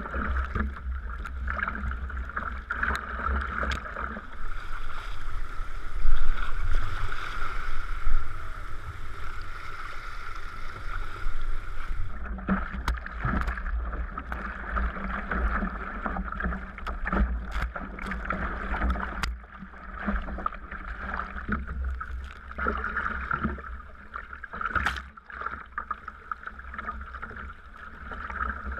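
Sea kayak under way: paddle blades dipping and splashing and water washing along the hull, over a steady low rumble, with a brighter hiss of water from about 4 s to 12 s.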